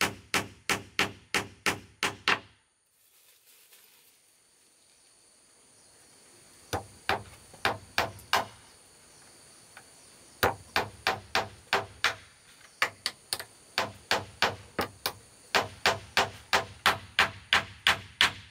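Hammer strikes, about three a second. They stop after a couple of seconds, come back as a short run midway, then run on steadily through the second half.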